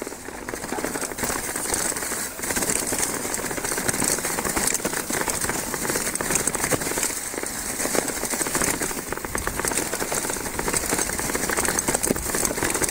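Mountain bike tyres rolling fast over a trail thick with dry fallen leaves: a continuous crackling rustle, dense with small clicks and rattles from the bike.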